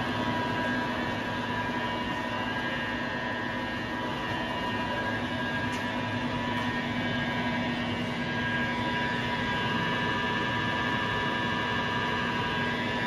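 LeBlond Regal Servo Shift engine lathe running at a steady spindle speed: an even machine hum from the geared headstock with a constant whine over it.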